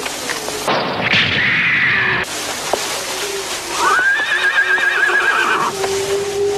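A horse whinnying: one long, wavering neigh about four seconds in, after a hissing rush of noise about a second in, with a steady low note held underneath.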